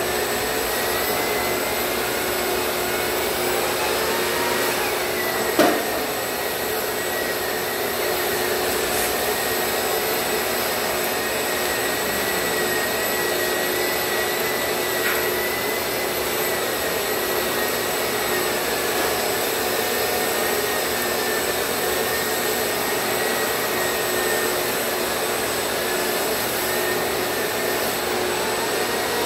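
A shop vacuum running steadily, pulling dust through the hose of a long-handled power drywall sander that is sanding popcorn texture off a ceiling. A faint high whine wavers slightly in pitch over the steady rush. A single sharp knock comes about five and a half seconds in.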